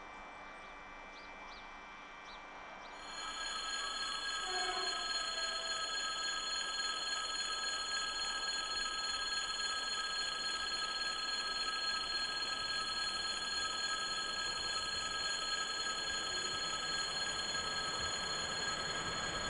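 Railway level-crossing warning bell ringing steadily, starting about three seconds in, warning that a train is approaching.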